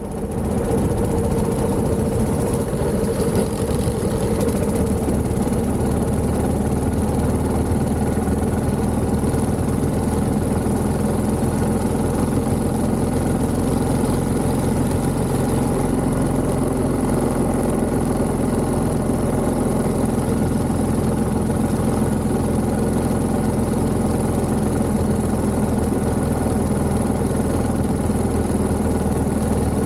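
A 1929 Méray motorcycle's 600 cc JAP engine running steadily, fading in at the start and then holding an even, unbroken beat.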